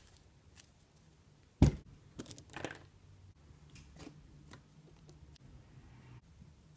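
A silicone mold handled on a plastic board: one loud knock under two seconds in as it is set down, then small scrapes and clicks as rubber bands are stretched around it.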